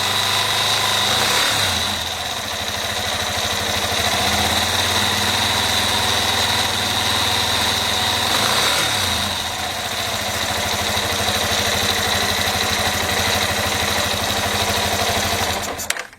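Yamaha Fazer 250's single-cylinder engine running near idle with a strange engine noise, which the owner wonders may be a connecting-rod (biela) knock. The engine speed rises and falls briefly twice, and the sound cuts off suddenly near the end.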